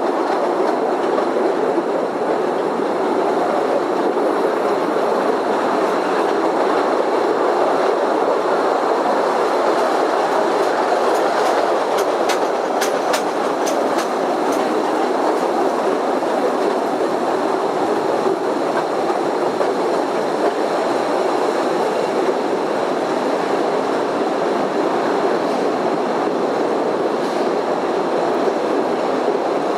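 Postojna Cave tourist train running on its narrow rails with a steady rumbling rattle. A run of sharp clicks comes about eleven to fourteen seconds in.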